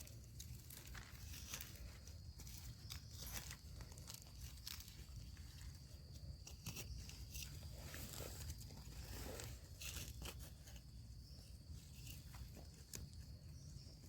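Faint, scattered crunching and rustling of dry leaf litter and twigs, with a few sharp crackles.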